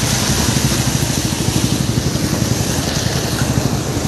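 A vehicle engine running steadily with a fast, even pulse, under a constant hiss.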